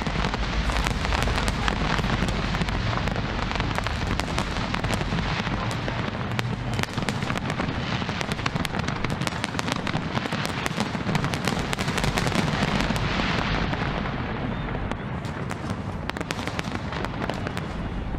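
A big aerial fireworks display going off continuously: dense crackling and rapid sharp pops over a low rumble of bursting shells.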